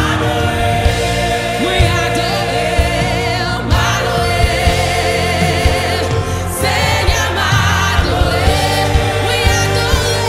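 Gospel worship team of several singers with microphones singing long held notes in harmony over live band accompaniment, with a regular low beat.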